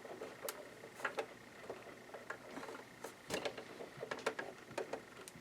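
Irregular light clicks and taps of a screw being worked out of a sewing machine's plastic housing, with one sharper knock a little over three seconds in.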